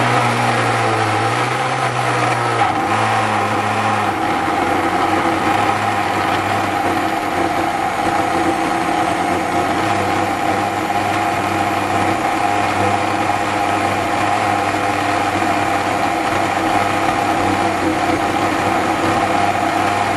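Tefal Powelix jug blender motor running steadily on its low speed, 1, blending soaked beans, peppers and water into a thick paste. In the first few seconds the low hum shifts as the blades catch the load, then it settles into a steady whir.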